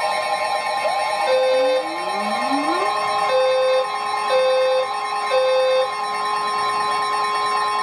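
NOAA Weather Radio warning alarm: a steady, piercing 1050 Hz tone sounding ahead of a severe thunderstorm warning. Four short, lower beeps come through it, the first about a second in and the rest about a second apart.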